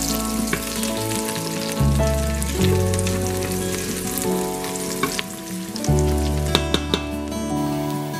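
Sliced onions, garlic and whole spices sizzling as they fry in oil in an Instant Pot's stainless steel inner pot, stirred with a silicone spatula, with a few clicks near the end. Background music with sustained low notes plays over it.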